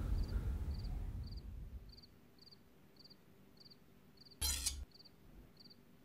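Crickets chirping steadily, about two short high chirps a second, over a low rumble that fades out in the first two seconds. A brief burst of noise cuts in about four and a half seconds in.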